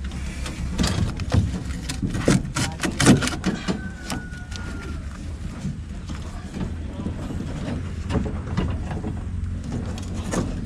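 Steel rebar clinking and knocking in short irregular bursts as the bars and stirrups are handled and tied in the stair formwork, over a steady low hum.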